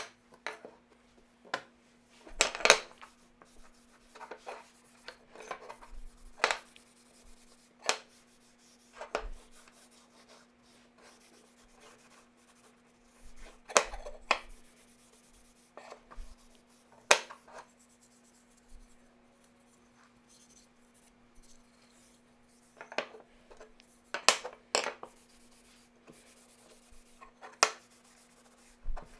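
Hand work on wood: intermittent rubbing and scraping with scattered sharp knocks and clicks at irregular intervals, over a faint steady hum.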